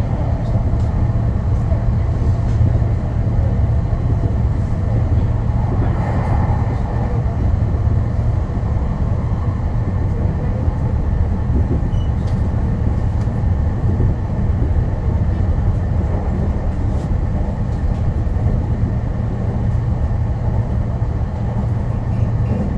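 Meitetsu Inuyama Line electric train running at speed, heard from the front of the passenger cab: a steady low rumble of wheels on rails and running gear.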